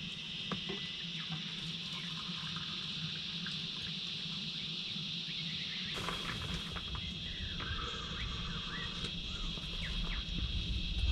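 Outdoor natural ambience: a steady, high-pitched insect chorus with a few faint bird calls over a low rumble.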